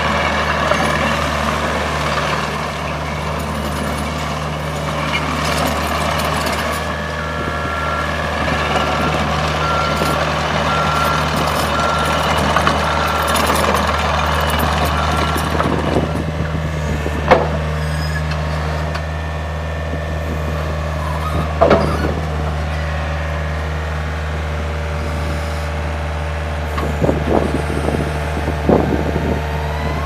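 Takeuchi TL130 compact track loader's diesel engine running steadily as the machine moves. Its backup alarm beeps about once a second for several seconds in the first half. A couple of sharp clanks follow, then short squeaks and knocks near the end as the lift arms raise the bucket.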